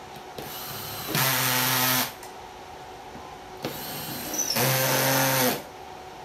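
Cordless drill-driver running twice, about a second each time, driving screws that fasten the seat mechanism plate to the underside of an office chair seat.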